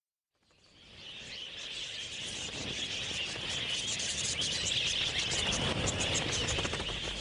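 A large flock of budgerigars chattering in a dense, continuous twitter. It fades in out of silence over the first couple of seconds, then holds steady.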